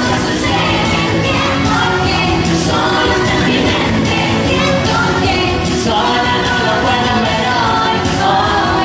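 Pop song with singing, played loud and steady.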